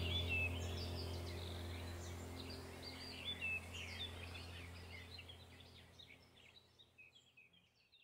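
Small birds chirping and twittering in quick high notes over a steady low hum, the whole mix fading out gradually.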